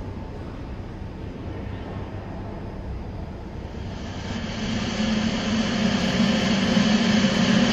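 A steady droning hum that grows louder from about four seconds in, where a low steady tone comes up under it.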